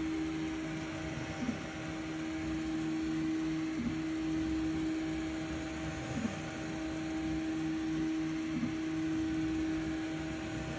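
Sovol SV08 3D printer running as it prints a first layer: a steady mechanical hum with one strong tone, briefly wavering in pitch about every two and a half seconds.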